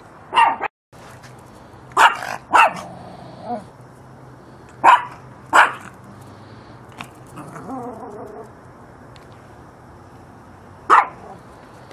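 A small dog, a Yorkshire terrier, barking in sharp single barks at irregular intervals: a cluster of about six in the first six seconds, then a long gap before one more near the end.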